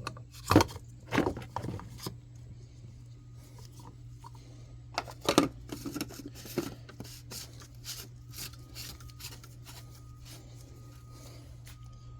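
Clicks, knocks and scrapes of tools and car parts being handled during oil-filter housing work, loudest in the first two seconds and again about five seconds in, over a steady low hum.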